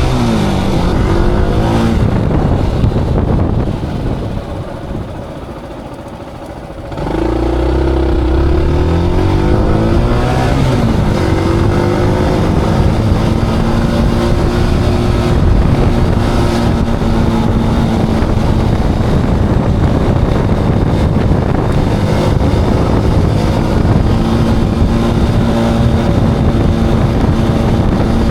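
Motorcycle engine on the road, pitch falling and rising through gear changes. The engine sound drops away for a few seconds, comes back about seven seconds in as the bike accelerates through the gears, then settles into a steady cruise with road and wind noise.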